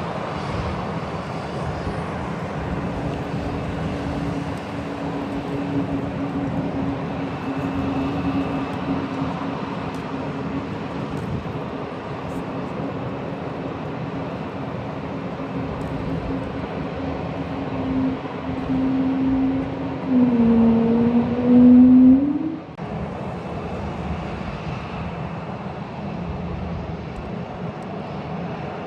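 A steady engine drone over a rushing noise. Its pitch dips about twenty seconds in, then rises sharply and cuts off, leaving a steady rumble.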